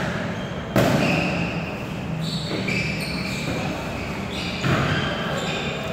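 A volleyball being struck twice during a rally, about four seconds apart. Each hit is a sharp smack that echoes around a large indoor gym.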